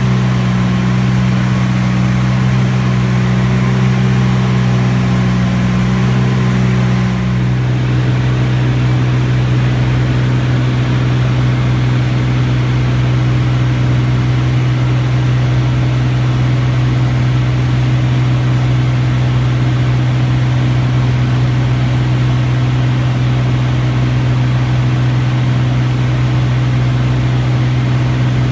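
Steady, loud engine drone with a low hum that holds one pitch throughout; a second, higher tone in it cuts off about seven seconds in.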